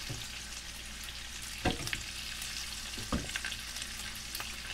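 Beef short ribs sizzling and crackling as they brown in oil in a skillet, with two dull knocks, one about a third of the way in and one past halfway.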